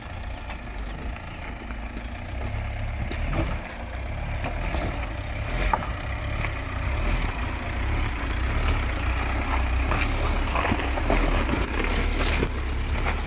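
Mahindra Thar's engine running at low revs as the 4x4 crawls over loose rocks, growing louder as it nears, with scattered clicks and knocks of stones under the tyres.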